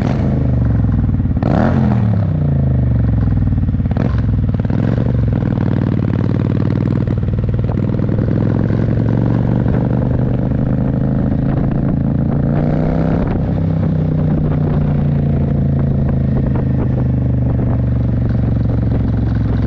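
Motorcycle engine running under way. Its pitch falls about a second and a half in, climbs slowly as the bike speeds up, then settles to a steady cruise, with a few brief knocks along the way.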